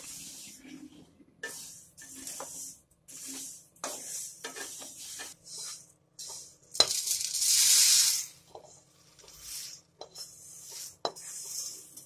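Dry, roasted coriander seeds rattling and scraping in a pan as a wooden spatula stirs them in repeated short strokes. Nearly seven seconds in comes a sharp clank of the pan against the steel plate, then a loud rushing pour of seeds onto the plate for about a second and a half, followed by more short rustles of the seeds being moved.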